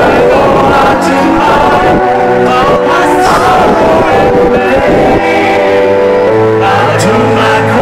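Live band music heard from among the audience: a male lead singer over keyboards and guitar.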